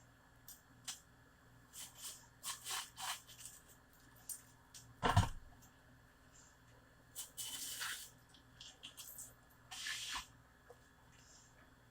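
Kitchen handling sounds during food preparation: scattered short scrapes and rustles, one sharp knock about five seconds in, and two longer scraping sounds later.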